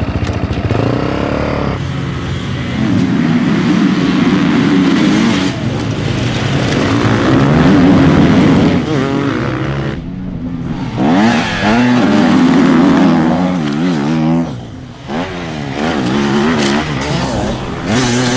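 Enduro dirt bike engines revving hard through the gears, pitch climbing and dropping again and again as several bikes accelerate and pass.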